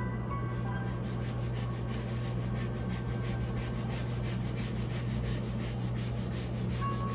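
A metal spoon scraping through a soft chocolate whipped-cream mixture in a bowl, a quick repeated rasping of about four strokes a second, over a steady low hum.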